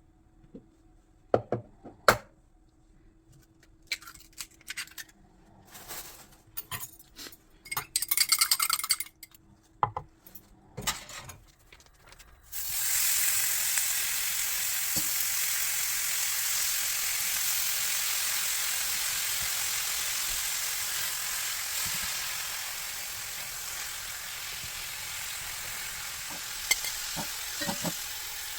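Scattered clicks and knocks of kitchen utensils and dishes, then about twelve seconds in food goes into a hot oiled pan and starts sizzling steadily, easing a little later on.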